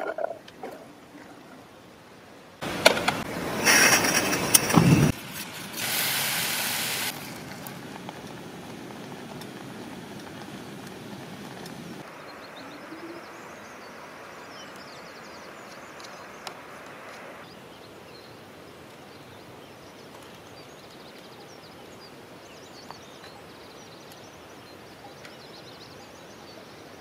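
Wild blueberries being handled: a few seconds of loud rattling and rustling as the berries are tipped into a metal pot, then a quieter stretch of spoon scraping and mashing in a plastic bottle, over a quiet outdoor background.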